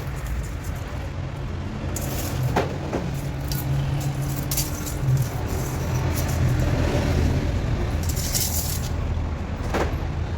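Heavy workshop machinery running with a steady low hum, with scattered metal clinks and knocks and a short rush of noise about eight seconds in.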